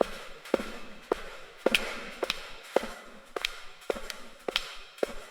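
Footsteps walking at a steady pace in an apartment hallway, about two sharp steps a second, each trailing off in the hallway's echo.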